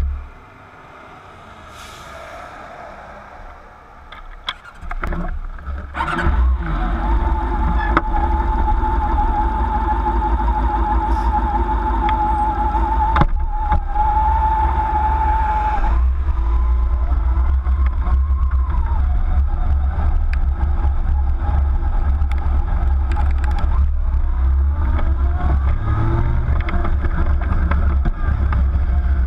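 Motorcycle engine starting about six seconds in after a few quiet knocks, running with a steady whine, then pulling away and speeding up. Heavy wind rumble on the bike-mounted camera's microphone once it is moving.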